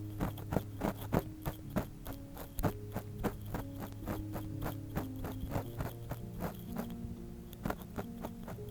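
Ear pick scratching and tapping in the ear of a binaural microphone, short dry strokes about three a second that thin out over the last few seconds, over soft background music with sustained notes.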